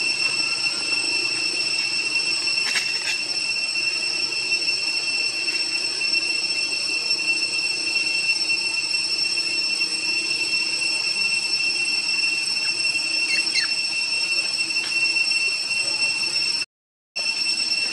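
Steady high-pitched drone of forest insects, unbroken except for a brief dropout near the end, with a couple of faint short chirps over it.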